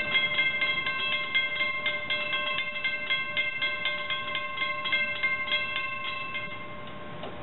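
Railroad grade-crossing warning bell ringing in rapid, even strikes, then stopping about a second before the end.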